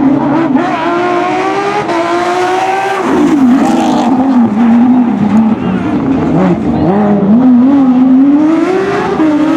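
Porsche racing car's engine revving hard under acceleration, its pitch climbing in steps through upshifts, dropping sharply about three seconds in as the driver lifts off, then climbing again before falling near the end.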